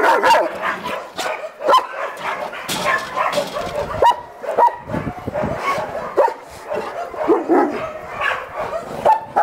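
Dogs barking in short, sharp barks at irregular intervals, with some higher yips among them.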